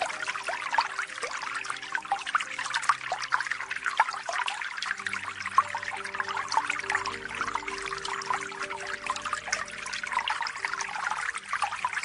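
Water trickling and splashing steadily. Faint, soft held notes of new-age music sit underneath and change every second or so.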